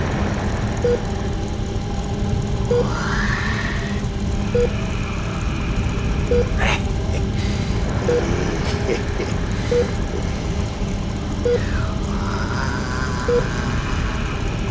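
Steady low rumble with a short beep repeating about every two seconds, and two swelling whooshes, one about three seconds in and one near the end.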